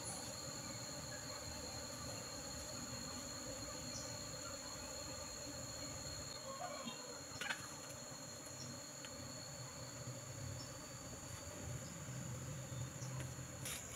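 Insects calling steadily at two high pitches, a continuous drone; the lower tone stops shortly before the end. A brief knock about seven and a half seconds in.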